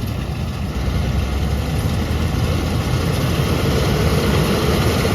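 John Deere 9870 combine's engine running steadily with a heavy low rumble. The engine has recently busted a fuel line, and it doesn't sound normal to the operator.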